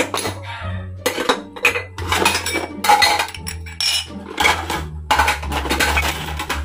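Plates and bowls clattering and clinking as they are lifted out of a plastic dish tub and stacked, with spoons and forks clinking into a plastic utensil holder: a quick, irregular run of clinks and knocks.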